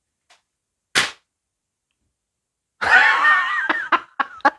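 A single sharp slap about a second in. From about three seconds, a freshly honed bushcraft knife slices through a sheet of paper: a crinkly rustle with wavering whistle-like tones that breaks into a quick run of sharp ticks.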